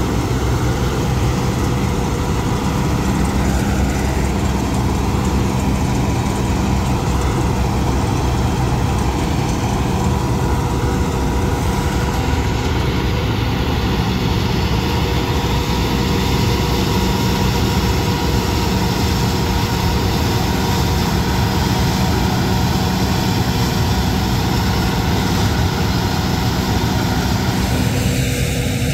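Bizon Rekord Z058 combine harvester's diesel engine running steadily, with a constant higher whine over the engine note. Near the end the sound changes.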